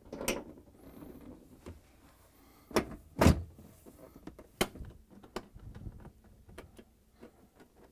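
Bosch dishwasher's outer door panel being fitted onto the door: a series of knocks and thumps, the loudest two about three seconds in, followed by sharper single clicks and lighter ticks.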